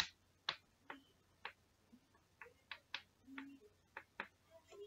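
Chalk tapping and clicking against a blackboard while digits are written into a grid: about a dozen sharp, irregularly spaced taps, roughly two a second.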